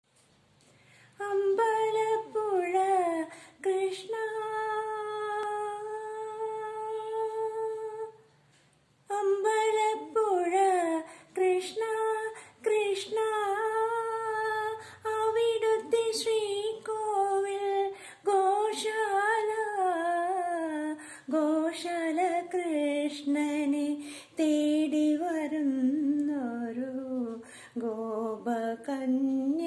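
A woman humming a slow devotional melody unaccompanied, without words, the tune gliding up and down. A few seconds in she holds one long steady note, breaks off briefly, then carries the tune on.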